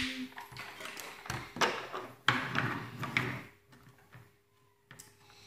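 Hard plastic toy parts clicking and knocking as they are handled on a tabletop, in a scattering of irregular taps. The taps die away to near quiet after about three and a half seconds.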